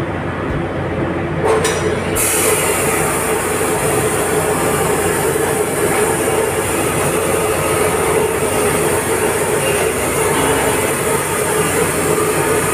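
Bench grinder running with a piece of metal held against the wheel, a steady grinding hiss setting in about two seconds in over a constant whine from the wheel.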